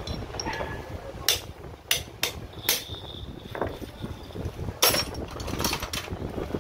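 Hand tools knocking and clinking against metal and a concrete floor: about eight sharp, separate knocks at uneven intervals, one ringing briefly, while the jammed bit of a demolition hammer is being worked on.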